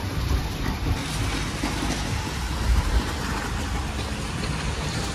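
Wind buffeting the microphone: a steady rushing hiss with uneven low rumbling gusts.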